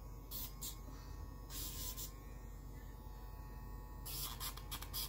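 Battery pet nail grinder running with a steady hum, with a few short bursts of high grinding hiss as it is touched to a puppy's claws, the longest starting about four seconds in.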